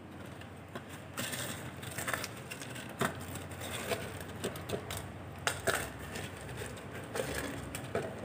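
Irregular light clicks and rustles of handling around a plastic blender jar loaded with whole spices, about a dozen scattered over several seconds. The blender itself is not running.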